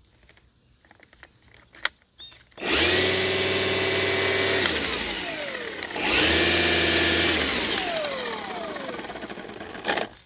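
Milwaukee M18 Fuel cordless string trimmer's brushless motor is triggered twice. Each time it spins up sharply, runs at full speed for a second or two, then winds down with a falling whine as the trigger is let go.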